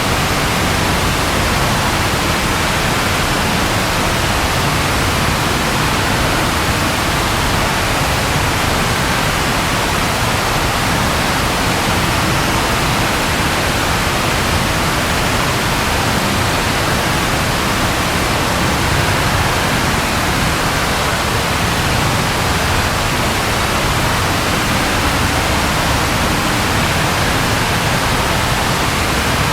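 Steady rainfall, an even, unbroken hiss with no thunder.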